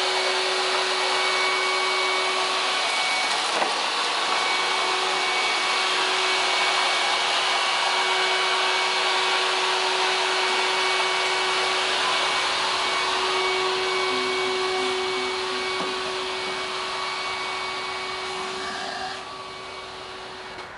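Wet-and-dry shop vacuum used as a dust extractor for a diamond core drill, running steadily with a constant hum under its rushing air. It fades somewhat toward the end and drops off sharply shortly before the end.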